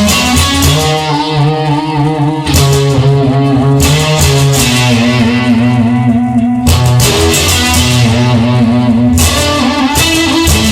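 Instrumental rock intro: strummed electric guitar chords over bass, with a fresh chord struck every couple of seconds, before the singing begins.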